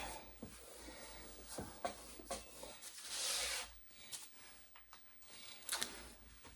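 Gorilla duct tape being pulled off the roll and rubbed down along the edge of a picture frame: rustling and rubbing, with one longer pull of tape about three seconds in and a few light knocks.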